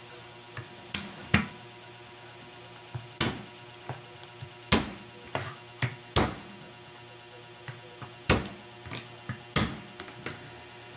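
Kitchen knife cutting garlic cloves on a plastic cutting board: about a dozen sharp, irregularly spaced knocks as the blade strikes the board.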